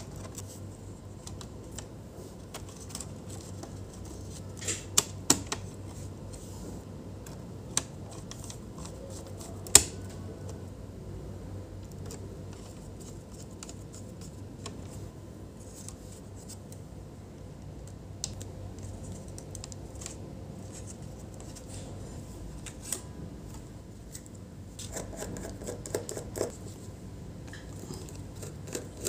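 Scattered small clicks and taps of a precision screwdriver and the plastic and metal parts of a laptop being handled during disassembly, over a steady low hum: a few quick clicks about five seconds in, one sharp click near ten seconds, and a short stretch of rustling and scraping near the end.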